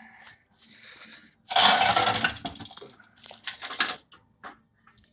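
Metal parts clattering and rattling while being handled, loudest from about a second and a half to two and a half seconds in, then a shorter rattle and a few sharp clicks.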